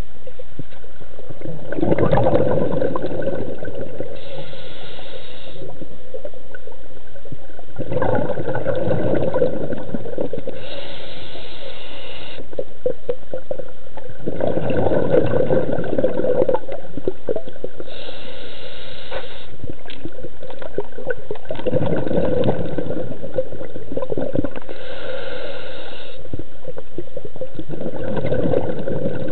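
Scuba diver breathing through a regulator, recorded underwater. A short hissing inhale alternates with a longer burst of bubbling exhaust, repeating about every six to seven seconds, with five exhales in all.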